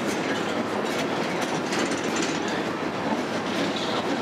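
Freight train of covered hopper cars rolling past: a steady rumble of steel wheels on the rails, with scattered clicks from the wheels and rail joints.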